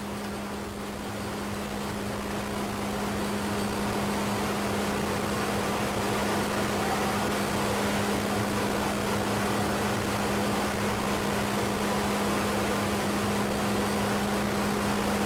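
Industrial machinery of a waste-pyrolysis plant running steadily: an even rushing drone with a constant low hum. It grows a little louder over the first few seconds, then holds steady.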